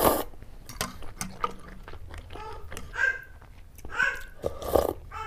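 Close-up eating sounds of chicken thukpa noodle soup: a loud slurp of noodles right at the start, then soft wet chewing and mouth clicks. Short slurping sips of broth from a spoon come about three to five seconds in.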